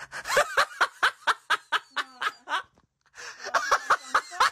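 A person laughing in a fast run of short, high-pitched bursts, about five a second, breaking off briefly about three seconds in and then starting up again.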